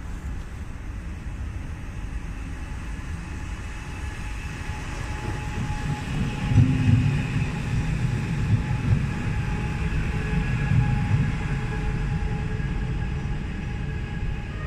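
Koleje Śląskie electric multiple unit passing along the platform, growing louder as it comes near. It makes a steady whine from its traction motors over the rumble of its wheels, with a few knocks over the rail joints while it is closest, midway through.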